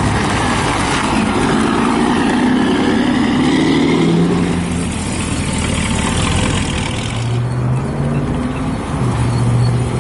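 Truck engines running as heavy vintage trucks drive past, one accelerating with its pitch climbing in the first few seconds. A lower, steadier engine note takes over about seven seconds in.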